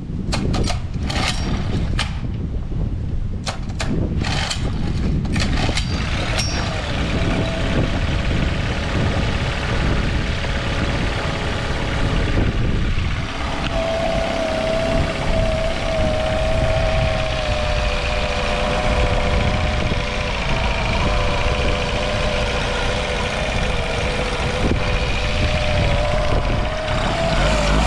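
Honda 7.5 hp four-stroke outboard motor pull-started and catching about a second in. It gives a string of sharp pops and knocks for the first several seconds, then settles into a steady run with a slightly wavering tone. It is running on a cleaned carburettor with the air mixture screw adjusted.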